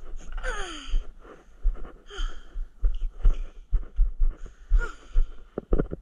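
Bare footsteps on a wooden deck, about two a second, with breathing close to a body-worn microphone. Near the start there is a short falling squeak.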